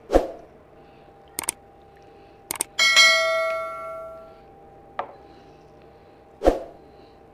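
A glass bowl of curry gravy knocking against a plate as it is tipped out, in sharp separate clinks about a second apart. One strike, about three seconds in, rings on like a small bell and fades over a second and a half. A last knock comes near the end.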